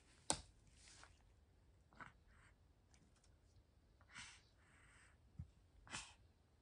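Near silence with a few faint clicks and soft rustles, the sharpest click about a third of a second in.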